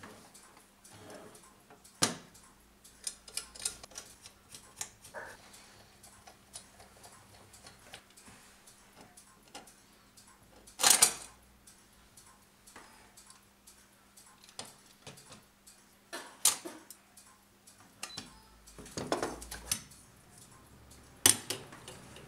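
Brass anniversary clock being taken apart by hand: irregular small clicks, taps and knocks of metal parts being handled and set down, with a louder clatter about halfway through.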